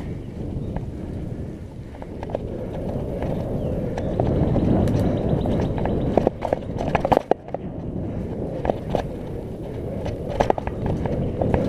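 Mountain bike rolling fast over a wet, leaf-covered dirt trail: a steady rumble of tyres and riding noise that gets louder about a third of the way in. Sharp rattles and knocks from the bike hitting bumps come in a cluster a little past halfway and twice more near the end.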